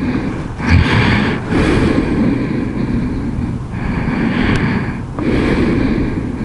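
Wind rushing over the microphone with the low rumble of a Kymco Xciting 500 maxiscooter's engine and tyres while riding. The high hiss of the wind drops away briefly a few times.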